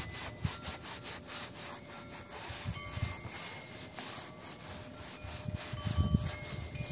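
Scouring sponge scrubbing back and forth over a mattress's quilted fabric, wet with a bleach-and-sugar mixture, in rapid repeated rubbing strokes.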